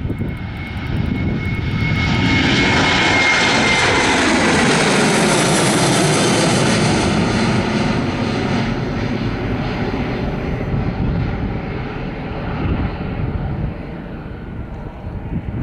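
Twin CFM56-7B turbofans of a Boeing 737-800 at takeoff thrust as the jet lifts off and climbs away. A high fan whine falls slightly in pitch over a broad jet roar that swells to its loudest a couple of seconds in, then fades as the aircraft climbs away.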